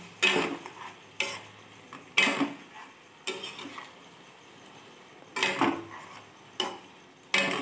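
Spatula scraping through chicken pieces and thick spice paste in a frying pan, in separate strokes roughly one a second with a pause in the middle, over a faint sizzle. The chicken is being sautéed (kosha) in the ground onion-garlic paste.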